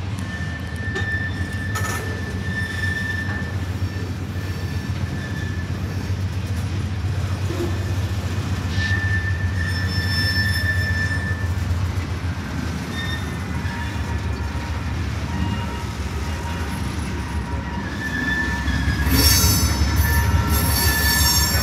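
Freight train cars rolling past on the rails: a steady low rumble with high wheel squeal that comes and goes. It grows louder near the end as a CSX diesel locomotive comes by.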